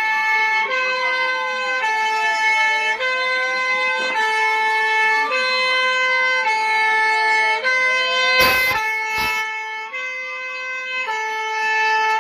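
Emergency Alert System alarm: two harsh, buzzy tones alternate about once a second, with a siren tone slowly rising and falling over them. Two short bursts of noise cut through about eight and a half and nine seconds in.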